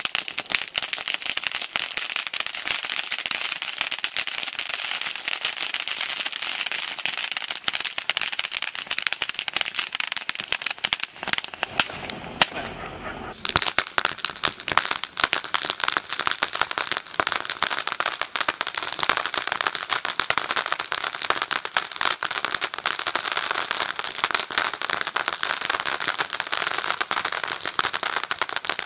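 Multi-colour peacock ground fountain firework spraying sparks, with a dense, continuous crackle.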